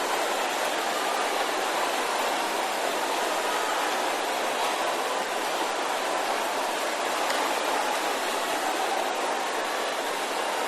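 A large congregation praying aloud all at once, many voices merging into one steady wash of sound with no single voice standing out.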